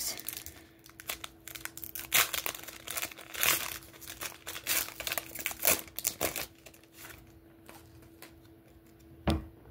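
A shiny foil Panini Prizm basketball card pack being torn open and crinkled by hand, in a quick run of sharp, irregular crackles over the first several seconds. A single dull thump comes near the end.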